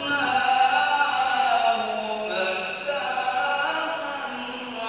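A man's solo voice reciting the Qur'an in the melodic tilawah style into a microphone: long held notes with melismatic turns, a first phrase sliding slowly down in pitch and a second phrase beginning a little over two seconds in.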